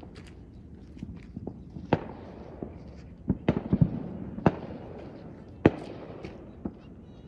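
Fireworks going off: about half a dozen sharp bangs with fainter pops between, several in quick succession near the middle. Each bang is followed by its echo off the mountains.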